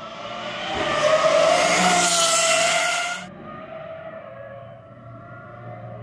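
Pagani Huayra R's naturally aspirated V12 running at high revs as the car goes past, loud and high-pitched. About three seconds in it cuts off suddenly to a quieter, lower-pitched engine note.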